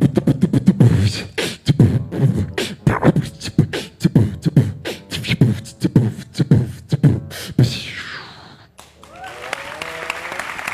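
Human beatboxing into a handheld microphone: a fast, rhythmic run of vocal drum hits, sharp clicks and low bass booms lasting about eight seconds. About nine seconds in, the audience breaks into applause and cheering.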